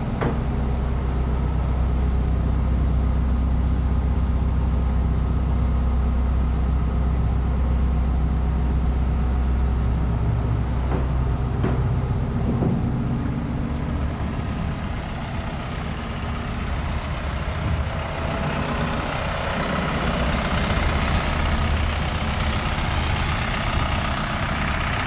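Isuzu NPR HD box truck's engine idling steadily, a low even hum, with a few light knocks about halfway through.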